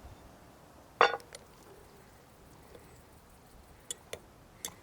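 Eating from a jar of canned stew: one sharp clink of a utensil against the glass jar about a second in, then a few faint clicks near the end.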